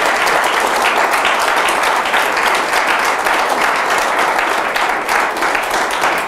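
Audience applauding, a dense, steady patter of many people clapping.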